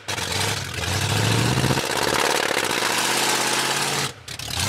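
Ford pickup truck's engine revving hard, its pitch climbing twice, while the truck barely creeps forward; the owners take the lack of drive for low fuel or a failing transmission. The sound breaks off briefly about four seconds in.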